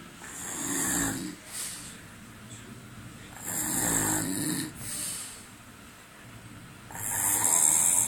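A man snoring in deep sleep: three loud snores about three seconds apart, each a low buzzing rattle with a breathy hiss.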